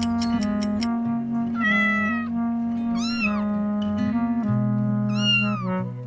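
A cat meowing three times over background music: one flatter call a little before two seconds in, then two rising-and-falling meows around three and five seconds in.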